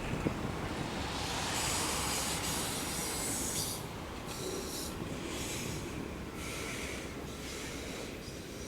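Train cars rolling past on steel rails, with a high hiss of the wheels that comes and goes about once a second.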